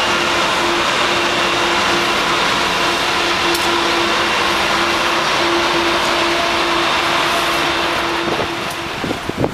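New Jersey Transit ALP-46 electric locomotive running past close by: a loud, steady whirring rush from its cooling blowers and running gear, with one steady mid-pitched hum on top that stops near the end.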